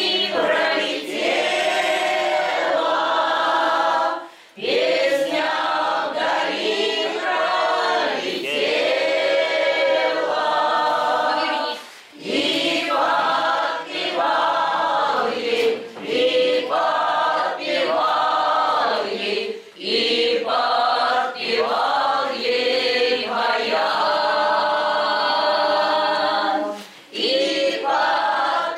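A choir singing a song together unaccompanied, in long phrases separated by short breaks about every seven or eight seconds.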